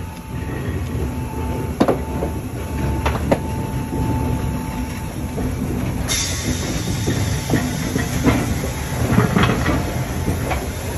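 German class 01 steam locomotive rolling slowly past at close range: a low rumble with scattered knocks and clanks from the running gear and the wheels on the rails. A hiss of steam starts suddenly about six seconds in.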